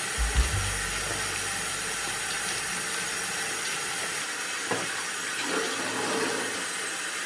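Steady hiss of a frying pan of tofu, peas and meat sauce sizzling on a gas stove, with a few low knocks of a wooden spatula against the pan near the start.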